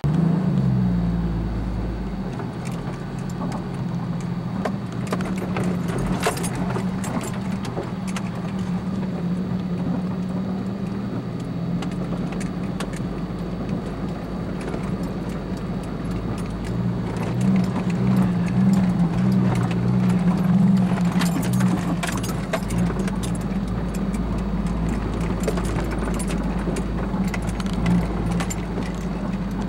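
Jeep engine running as it drives over a rough dirt road, heard from inside the vehicle, with the body and loose gear rattling and clattering over the bumps. The engine gets louder for a few seconds in the middle.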